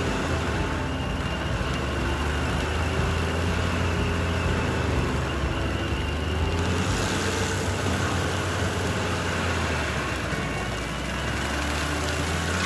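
Stump grinder's engine running steadily under load, a deep, constant hum with noise over it. A higher hiss of cutting fills in about seven seconds in.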